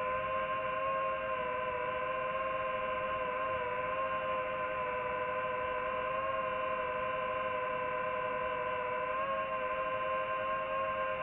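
DJI FPV drone's motors and propellers whining steadily in flight, several tones held together that rise and dip slightly in pitch as the throttle changes.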